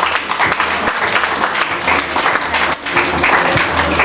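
Audience clapping and applauding, with music playing underneath.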